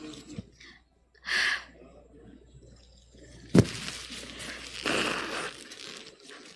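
Close-up handling noise at a desk microphone: short breathy rustles and one sharp thump on the microphone about three and a half seconds in.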